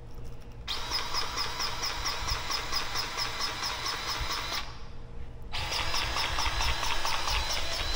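Cordless grease gun running, pumping grease with a fast, even clicking through a bearing packer into a Polaris Ranger wheel bearing. It starts a moment in, stops briefly after about four seconds, then starts again.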